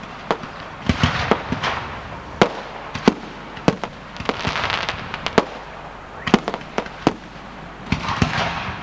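Fireworks going off: a string of sharp bangs and cracks, with spells of crackling hiss from the bursting shells in between.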